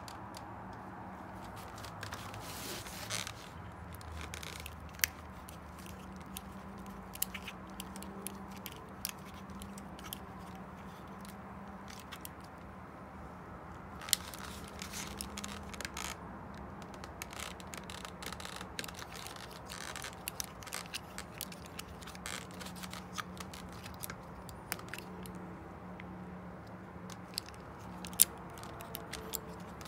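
Hand-assembly of a bicycle stem: scattered sharp metal clicks and short scrapes as a folding multi-tool's hex key works the stem bolts, with crinkling of plastic packaging. A steady low hum runs underneath.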